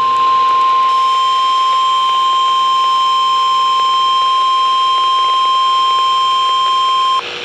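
NOAA Weather Radio 1050 Hz warning alarm tone: one loud, steady, shrill tone that cuts off suddenly about seven seconds in. It is the alert tone that signals a warning broadcast, here a river flood warning, is about to be read.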